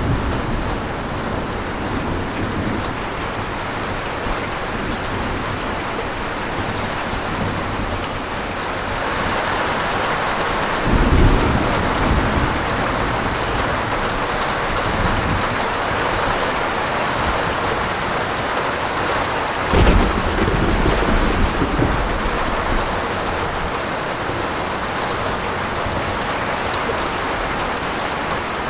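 Steady rain falling, growing heavier about nine seconds in. Two claps of thunder, about eleven and twenty seconds in, each rumbling on for a couple of seconds.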